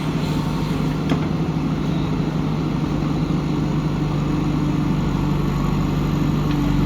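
Diesel engine of a JCB 3DX backhoe loader running steadily at a constant speed, with one sharp click about a second in.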